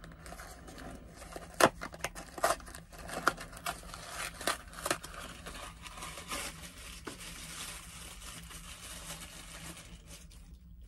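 Plastic and cardboard toy packaging crinkling and tearing as it is opened by hand, with irregular sharp crackles and snaps, the loudest about a second and a half in, settling into steadier rustling that stops near the end.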